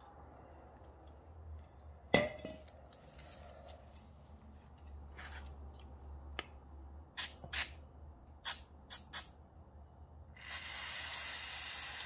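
Aerosol brake cleaner sprayed onto a motorcycle's front brake caliper: a steady hiss that starts about ten seconds in. Before it come a few sharp clicks and a knock.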